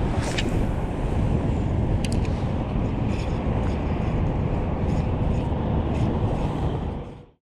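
Steady wind rumble on the microphone with water lapping against the kayak, and a few faint clicks, fading out near the end.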